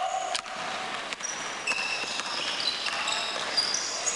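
Basketball sneakers squeaking on a hardwood gym floor: a run of short high squeaks, with a longer, lower one at the very start. A basketball bounces on the court, once about half a second in and again about a second in.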